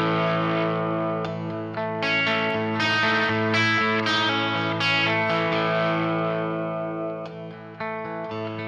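Electric guitar, a Les Paul with 1958/59 PAF humbucking pickups, played through a 1966 Marshall JTM45 amplifier heard through a close-miked 4x12-type V30 speaker: ringing, sustained chords and notes that change about every second, letting one die away before a fresh chord is struck near the end.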